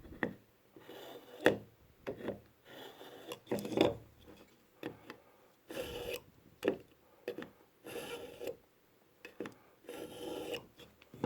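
Victorinox Swiss Army pocket knife blade drawn again and again through a KitchenIQ pull-through knife sharpener under pressure. The steel rasps on the sharpening slot about once a second, a dozen or so strokes.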